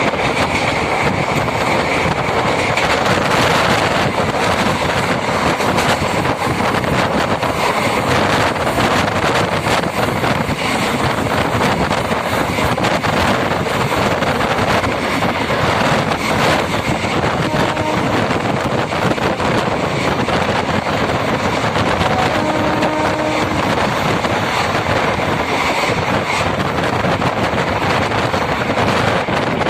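Moving MEMU passenger train heard from on board: a steady rush of running noise mixed with wind buffeting the microphone.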